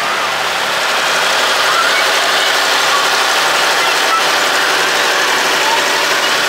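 An antique Allis-Chalmers farm tractor's engine running steadily as the tractor rolls slowly past, with crowd chatter mixed in.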